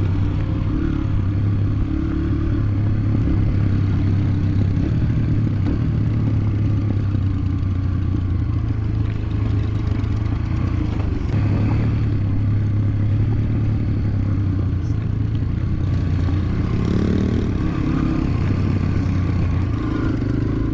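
Motorcycle engine running at a steady pitch under way, with some clatter over the top.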